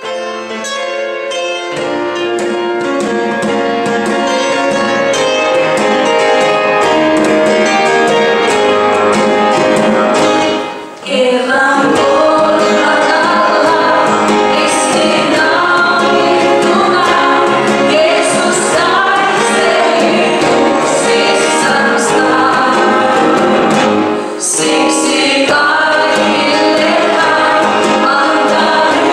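Gospel praise group and congregation singing a Finnish hymn to band accompaniment that includes hand-played conga drums. The music fills out about two seconds in and breaks off briefly twice between sung lines.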